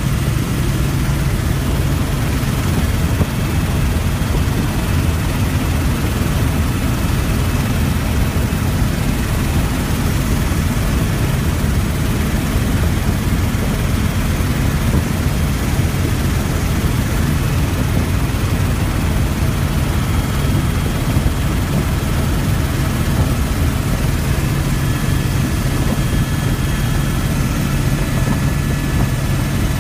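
Helicopter running, heard from inside its cabin: a steady, loud engine and rotor drone with a constant low hum underneath, unchanging throughout.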